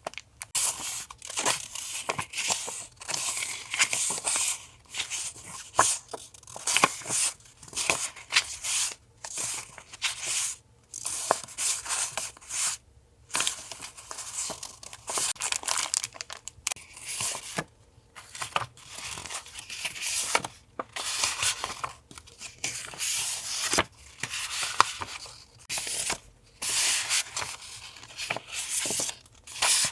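Paper and plastic packets of stickers and journaling paper being handled and unwrapped: irregular rustling, crinkling and tearing, broken by light taps and clicks and short pauses.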